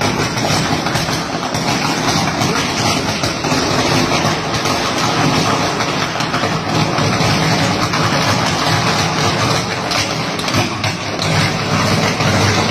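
Short-circuited power cable on a utility pole arcing and burning: a loud, steady, noisy buzz with constant crackling.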